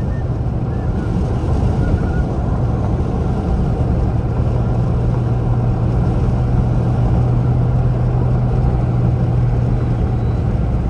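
Car driving on a paved road, heard inside the cabin: a steady drone of tyre and engine noise, with a low hum that grows stronger about a third of the way in.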